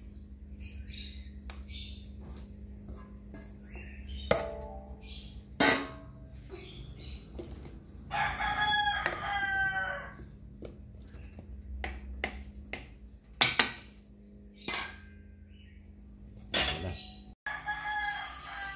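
A rooster crowing in the background, one long crow about eight seconds in and another near the end. A few sharp knocks from a wooden spoon and food going into the cooking pot come between the crows, over a faint steady hum.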